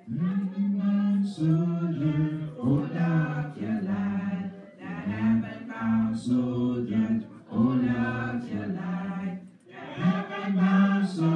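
Congregation singing a hymn together in sustained phrases, with short breaks between phrases.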